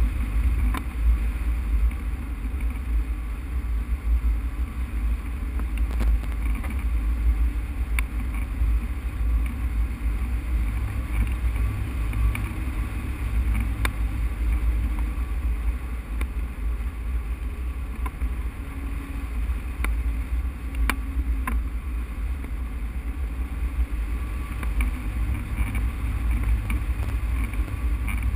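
Airflow rushing and buffeting over a glider-mounted camera's microphone in hang glider flight: a steady deep rumble, with a few faint ticks.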